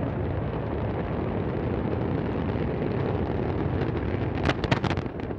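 Deep, steady rumble of the Antares rocket's failing launch and its burning propellant, broken near the end by a quick run of sharp bangs and crackles as the vehicle explodes and falls back onto the pad.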